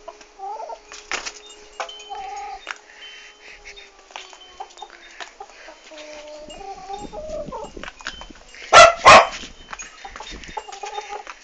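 Chicken clucking with short pitched calls and scattered clicks, then two loud, harsh bursts in quick succession about nine seconds in.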